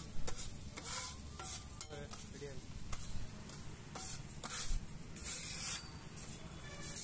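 Flat metal spatula scraping across a flat griddle in several short, uneven strokes, gathering a frying egg-and-okra mixture, with a light sizzle underneath.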